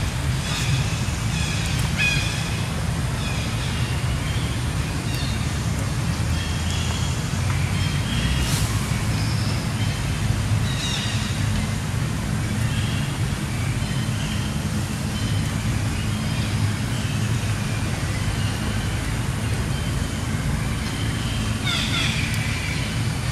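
Outdoor background: a steady low rumble with short, high chirps scattered through it.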